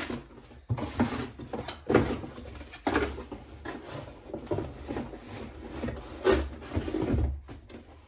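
Handling noise from unpacking cordless vacuum cleaner parts: plastic attachments and packaging rubbing and rustling, with irregular sharp knocks, the loudest about two seconds in and just after six seconds.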